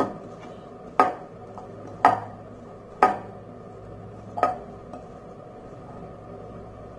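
A utensil knocking against a mixing bowl four times, about a second apart, each strike ringing briefly. This happens while a chicken and mashed-potato cutlet mixture is being mixed.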